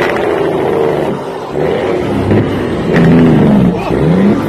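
Heavy truck's diesel engine under way, heard from inside the cab. Its pitch rises and drops a few times as the truck works through the gears.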